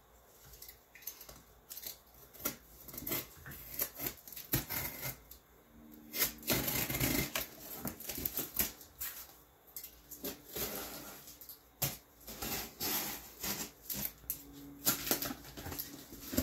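A box cutter slicing through packing tape on a cardboard shipping box, with irregular clicks, scrapes and the rustle of cardboard being handled. There is a longer scraping stretch about six to eight seconds in.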